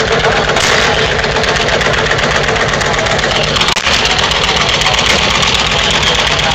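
Engines of vintage green-and-yellow John Deere tractors running as they drive slowly past at low revs, with a brief break a little over halfway through.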